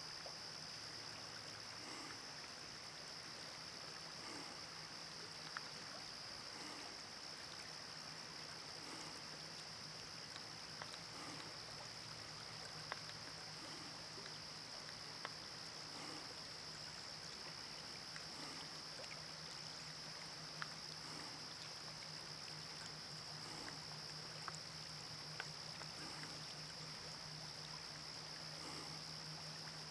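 Faint, steady sound of a shallow river running over stones, with small ripples lapping at the gravel shore in a soft rhythm about once a second. A steady high-pitched hiss sits over it, with a few tiny ticks.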